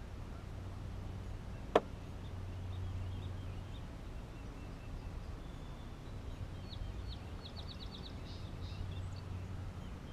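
Songbirds chirping, with a quick trill of high notes about three quarters of the way through, over a steady low hum. A single sharp click about two seconds in is the loudest sound.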